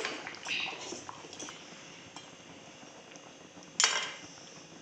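A spatula scraping and clinking against a cooking pan as a heavy fish head is turned over in curry, with one sharp clank of metal on the pan about four seconds in.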